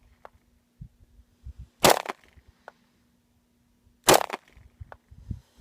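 Glock 22 .40 caliber pistol firing two single shots about two seconds apart, each a sharp crack with a short tail.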